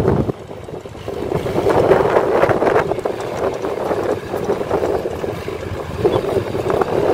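Diesel engines of a crawler excavator, a crawler bulldozer and dump trucks running together as one rumbling mix, with wind noise on the microphone. It dips briefly just after the start and then builds back up.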